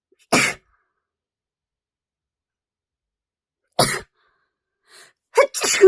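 A person sneezing repeatedly: short, sharp bursts about half a second in and about four seconds in, then a louder double burst near the end, the last ending in a voiced cry.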